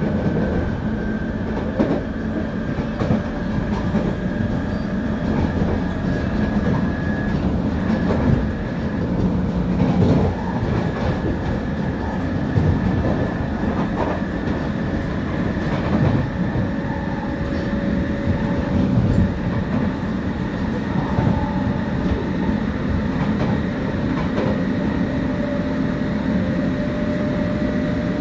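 London Underground 1996 Tube stock train accelerating at speed, heard from inside the carriage. The GTO inverter traction motor drive gives a whining scream whose tones slowly rise in pitch. Under it runs a steady rumble of wheels on track, with occasional knocks.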